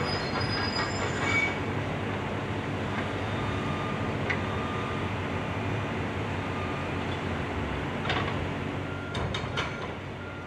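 Diesel excavators running under load while a demolition attachment crunches and scrapes through the concrete and steel of a bridge deck. High metallic squeals and clanks come near the start and again about eight to ten seconds in.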